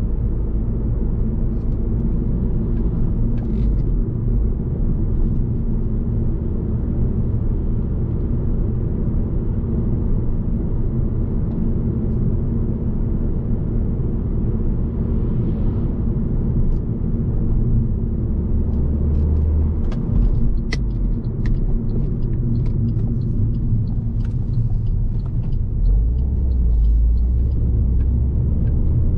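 Alfa Romeo Giulietta 1.75 TBi turbocharged four-cylinder petrol engine and tyre noise heard from inside the cabin while driving: a steady low rumble. It swells louder briefly past the middle and again near the end, and a scatter of short, sharp clicks comes in the second half.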